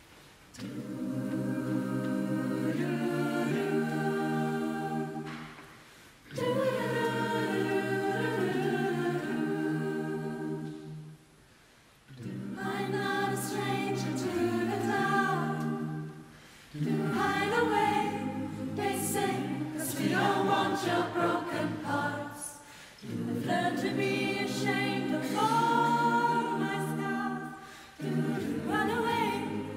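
A choir singing, in sung phrases of a few seconds with short breaks between them.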